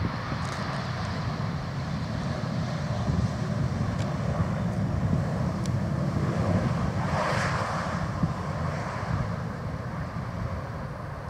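Embraer 190 jet's engines during the landing rollout, a steady rushing jet noise that swells to a peak about seven seconds in as the aircraft passes, with wind buffeting the microphone.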